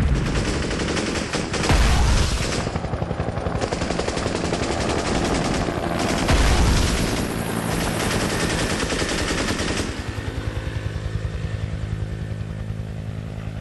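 Rapid, continuous automatic gunfire with two heavy blasts, about two seconds in and about six seconds in. From about ten seconds in the gunfire gives way to a helicopter's rotor chop and engine hum.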